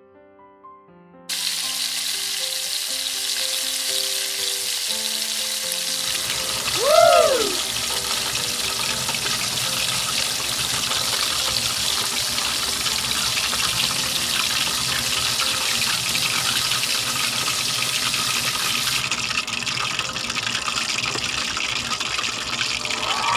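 Pork leg (pata) deep-frying in hot oil, a dense steady sizzle that starts suddenly about a second in. Soft piano music plays under the first few seconds, and a brief tone that rises and falls is the loudest moment at about 7 seconds.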